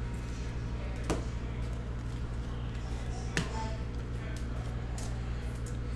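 Trading cards handled on a tabletop mat, with two soft taps about a second in and again past three seconds, as a card in a plastic top-loader and loose cards are set down and sorted. A steady low hum runs underneath.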